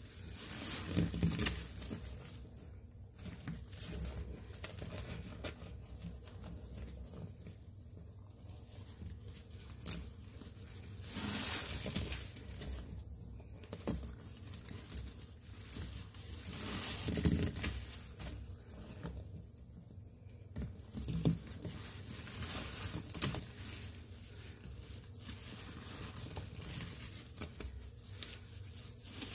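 A sponge soaked in thick, foamy soap paste being squeezed and kneaded by gloved hands, giving wet squelching and fizzing, crackling bubbles. The squeezes come irregularly, with several louder squelches through the stretch.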